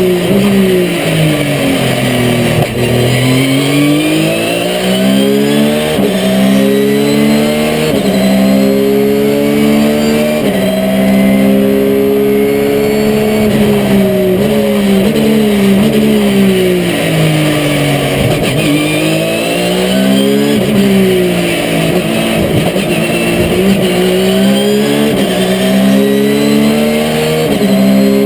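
Porsche 997 GT3 RSR race car's flat-six engine at racing pace, heard inside the cockpit. It climbs through the gears with sudden drops in pitch at each upshift and falls away several times under braking and downshifts, then pulls up again.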